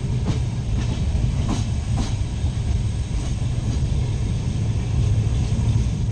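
Passenger train running, a steady low rumble with a few faint clicks of the wheels passing over rail joints.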